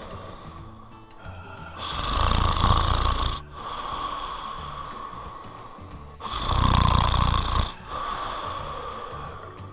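Snoring: two loud snores about four seconds apart, each lasting about a second and a half, with quieter breathing between them.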